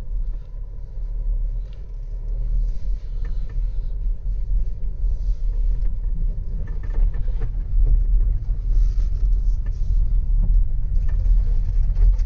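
Cabin of a Skoda Karoq 1.5 TSI driving slowly over a rough dirt field track: a steady low rumble of engine and tyres, with scattered light knocks and rattles from the bumps.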